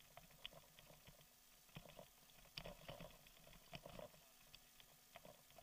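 Faint, irregular knocks and rattles of a bicycle rolling over a rough dirt track, with a muffled low rumble from the tyres.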